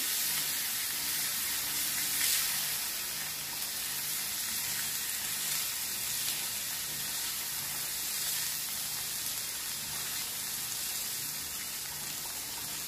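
Chopped tomatoes, onions and spices sizzling steadily in oil in a cast iron pan as they are stirred with a wooden spatula.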